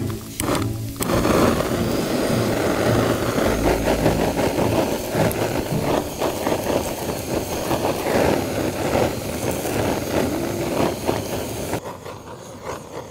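Strong gusting wind, rushing with a low rumble on the microphone, that drops away sharply near the end.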